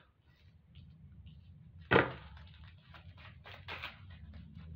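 A tarot deck shuffled by hand: a sharp slap of cards about two seconds in, the loudest sound, then a run of quick card flicks and rustles, over a faint low hum.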